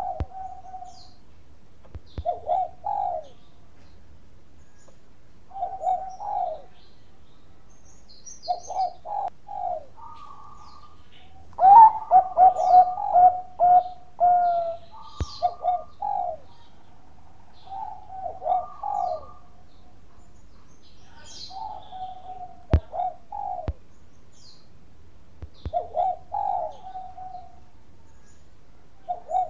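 Bangkok-strain zebra dove (perkutut) singing its staccato cooing song: short phrases of a few quick notes ending on a held note, repeated every few seconds. The longest, loudest phrase comes about twelve seconds in.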